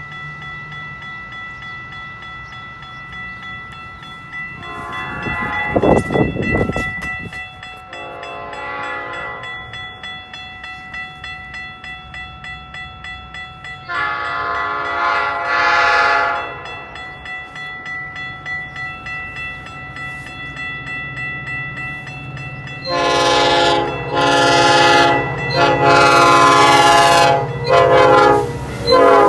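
Railroad crossing warning bell ringing steadily while an approaching Metra commuter train sounds its air horn in several groups of blasts. The last and loudest run of blasts comes in the final six seconds as the train nears the crossing. A brief loud rush of noise comes about six seconds in.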